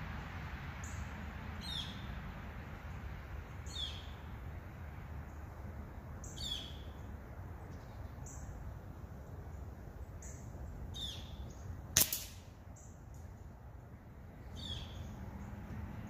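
Birds chirping every few seconds over a steady outdoor rumble, then about twelve seconds in a single sharp crack of a shot from a Weihrauch HW 97 underlever spring-piston air rifle at the Q-tip target.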